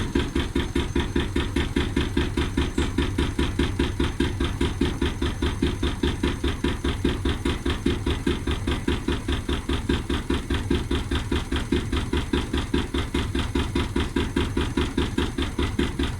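Brand-new Siemens WM14K248 washing machine running with a steady, rapid knocking, about four knocks a second, an abnormal knock for a machine only two days old.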